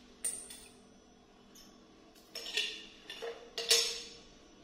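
Shards of a broken flower vase clinking against each other and the tile floor as they are picked up by hand: a few short, sharp clinks with a brief ring, one about a quarter of a second in and a cluster in the second half.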